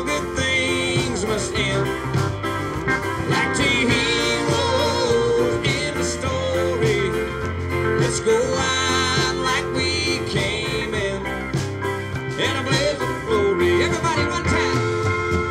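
Live country band playing a song, with drums, bass guitar and electric guitar.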